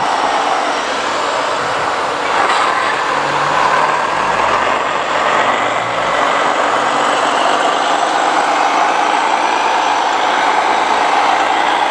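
Radio-controlled model trucks running steadily, their motors and gears whirring with a slightly wavering pitch.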